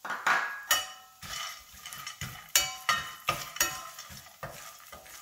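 Metal spoon stirring peanuts in a stainless steel frying pan, with repeated clinks and scrapes against the pan, some ringing briefly.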